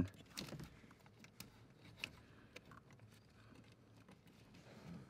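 Faint, scattered light clicks as the pin is fitted through the brake pedal arm and the brake booster pushrod.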